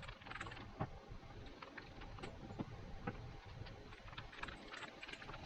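Faint, irregular clicks and taps of hands working a dry barbecue rub onto raw pork chops.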